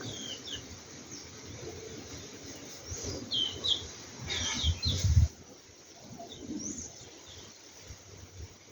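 Birds chirping: short, high, falling calls, several in quick succession from about three to five seconds in, over a low rumble that cuts off suddenly about five seconds in.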